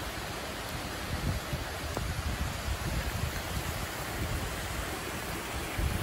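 Tropical storm wind and heavy rain: a steady hiss of rain with irregular gusts buffeting the microphone in low rumbles.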